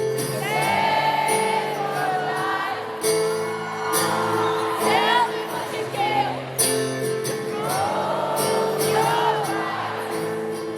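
Live acoustic rock music: sustained instrumental chords with a voice singing wordless, gliding lines over them.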